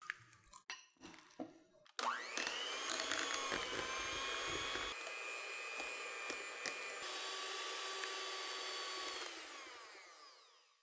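Electric hand mixer running, its beaters blending custard cream into whipped cream in a glass bowl. The motor spins up with a rising whine about two seconds in, runs steadily, and fades out near the end. It is preceded by a few soft knocks and scrapes as the custard goes into the bowl.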